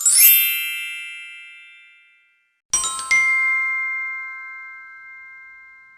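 Two bell transition sound effects of the 'idea' kind. First a bright, shimmering chime struck once and ringing out for about two seconds; then, after a short silence, a bell struck twice in quick succession whose few clear tones ring on and fade slowly.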